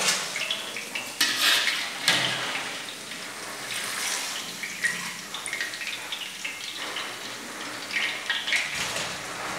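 Steel skimmer clattering and scraping against a steel frying pot and a perforated steel draining tray several times as fried vegetable fritters are lifted out of hot oil, over the steady sizzle of deep-frying.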